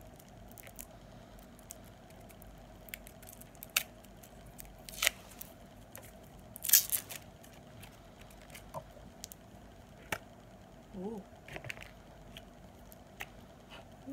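Cosmetic packaging being opened by hand: scattered crackles, clicks and tearing of the wrapping, the loudest about seven seconds in.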